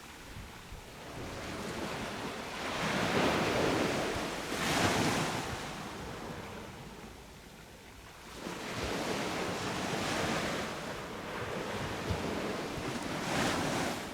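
Ocean waves breaking and washing up a beach in two surges: one builds to a peak about four seconds in and fades, and a second comes in about eight seconds in and holds until near the end.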